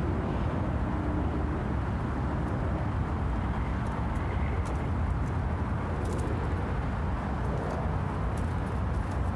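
Steady outdoor rumble of distant road traffic, with a few faint light ticks in the second half.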